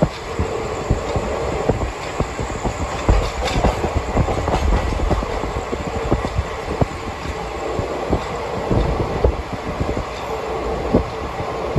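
Express train's passenger coach running on the track: a steady rumble broken by many irregular sharp clacks of the wheels over rail joints, heard from inside the moving coach.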